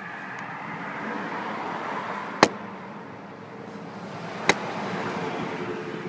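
Two sharp single clicks about two seconds apart, over steady background noise that swells and fades.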